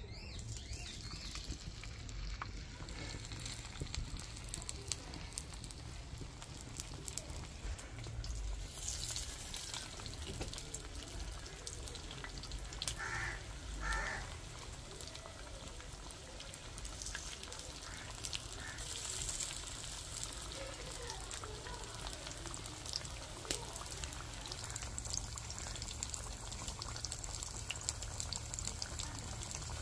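Masala-coated tongue fish (sole) fillets deep-frying in hot oil in a shallow pan, a steady sizzle with frequent fine crackles that grows brighter about nine seconds in.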